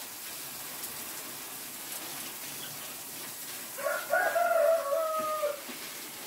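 A rooster crowing once, about four seconds in: a single crow of nearly two seconds that rises at the start and then holds a long, slightly falling note, over a faint steady hiss.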